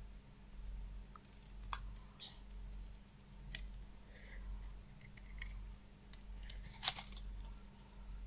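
Small scissors snipping through card in short, irregular cuts, a handful of separate sharp snips with the loudest near the end, over a faint steady low hum.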